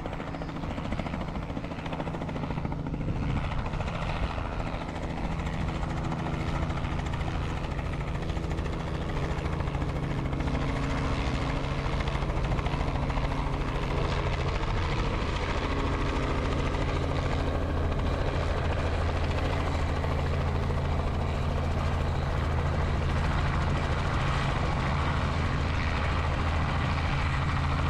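Robinson helicopter's rotor and engine running as it flies a normal approach and descends to a low hover, growing louder over the first dozen seconds as it comes closer, then holding steady.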